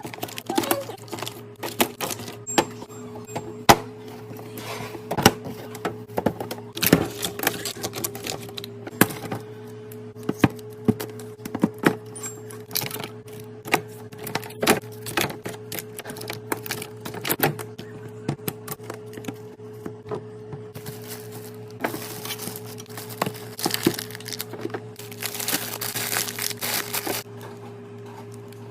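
Containers and food packaging handled and set down while restocking a fridge: frequent short clicks and knocks, with two longer stretches of rustling in the second half, over a steady low hum.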